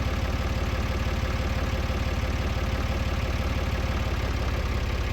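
Engine of the machine lifting the beam, running steadily at idle: a low, even drone with a fast pulse.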